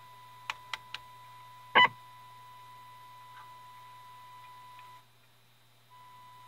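Test tone from the signal generator playing through a 1932 Tiffany Tone tube radio's speaker as a steady whistle-like note over a faint low hum. It is broken by loud crackling bursts, a few smaller clicks and, near the end, a dropout of about a second. This is the sign of a bad connection at a tube or its socket, which turns out to be a cold solder joint on a tube pin.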